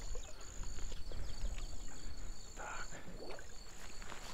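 Insects trilling steadily at a high pitch, with a faster pulsing trill beneath it, over a low outdoor rumble and a few small knocks.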